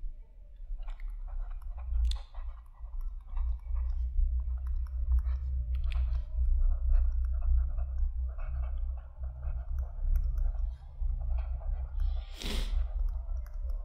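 Stylus scratching and ticking on a writing tablet as a line of text is handwritten, over a steady low hum. A short rushing noise comes near the end.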